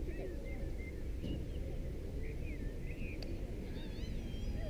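Several birds chirping and singing in short, scattered phrases over a steady low rumble, the chirps coming more thickly near the end.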